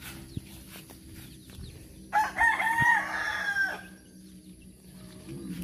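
A rooster crowing once, a single crow of nearly two seconds starting about two seconds in.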